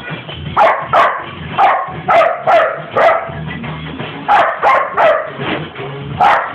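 A dog barking: about ten short, sharp barks, several in quick pairs, over a song playing in the background.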